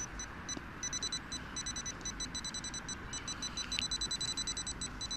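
Handheld metal-detecting pinpointer probe beeping in rapid short high-pitched pulses, in irregular runs that run together in stretches, as it is worked around the hole to locate a metal target.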